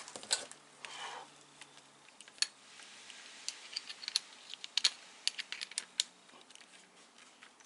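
Scattered light clicks and taps of small metal parts being handled: a drill bit being swapped in a drill's chuck.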